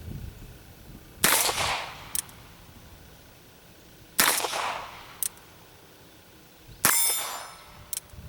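Colt Officer's Model Target revolver in .22 Long Rifle firing three single shots about three seconds apart, each a sharp crack. About a second after each shot comes a fainter sharp tick, and the last shot has a brief metallic ring.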